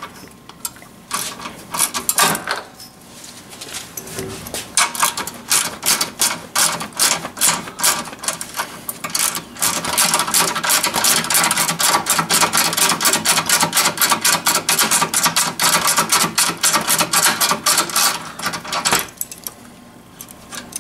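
Hand socket ratchet clicking as a nut is worked loose from a stud. A few separate clicks come in the first seconds, then a long, even run of rapid clicks from about five seconds in, which stops a couple of seconds before the end.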